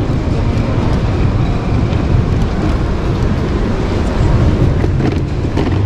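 Steady hall ambience of a busy indoor trade fair: a continuous low rumble with indistinct voices of visitors.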